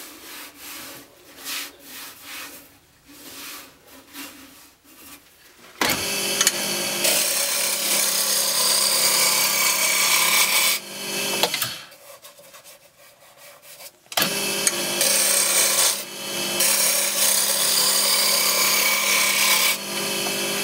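Roughing gouge cutting a spindle blank spinning on a wood lathe, taking off the last flat spots to bring it to a round cylinder. It is a loud, steady shaving noise with the lathe's hum under it, in two long passes: the first starts suddenly about six seconds in, and after a short break near the middle comes the second. Before the first pass there is only soft, irregular rubbing and knocking.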